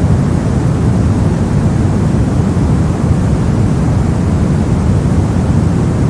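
Soft white noise: a steady, even rushing noise, deep and low-weighted with only a faint hiss at the top. It has no rhythm and no changes.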